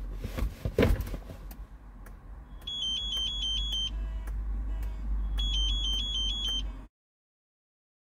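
Car-alarm phone app's alert tone: two bursts of a fast two-tone warbling beep, each a little over a second long, signalling that the alarm's shock sensor has been triggered. A low steady hum sits underneath, and all sound cuts out abruptly near the end.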